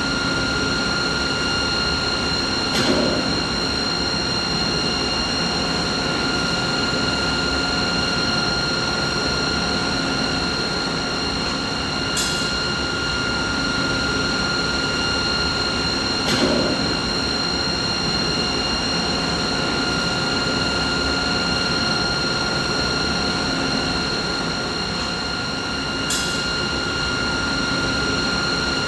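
Running machinery: a steady mechanical hum with a constant high whine in several tones over a low rumble, and a brief click or knock about four times.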